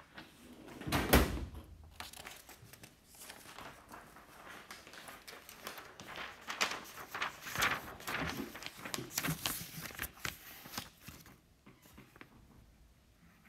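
A single heavy thump about a second in, then several seconds of rustling with scattered light clicks and knocks, like objects being handled, which die away near the end.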